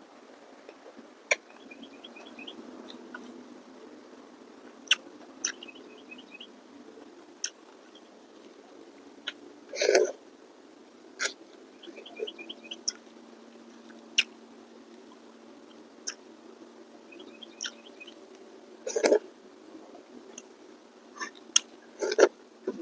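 Close-up eating sounds of rice noodles with soup eaten by hand: scattered sharp lip smacks and mouth clicks while chewing, with longer, louder slurps about ten seconds in, about nineteen seconds in and near the end.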